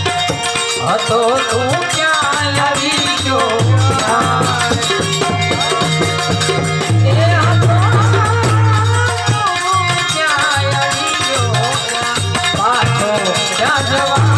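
Gujarati devotional folk music (bhajan): a wavering, ornamented melody line over held harmonium notes, with repeated hand-drum strokes and a jingling rattle.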